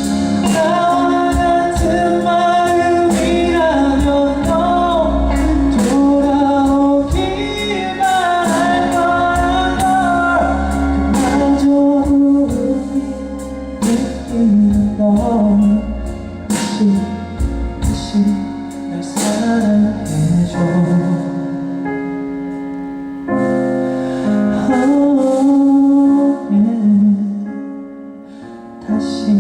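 Live pop ballad played by a band, with drums, keys and wordless sung vocal lines gliding over sustained chords; the backing thins out and drops in level near the end.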